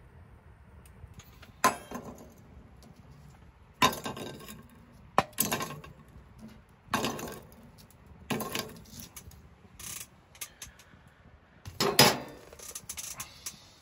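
Dishes and utensils being handled: a series of about eight separate clinks and knocks, spaced irregularly a second or two apart, the loudest near the end.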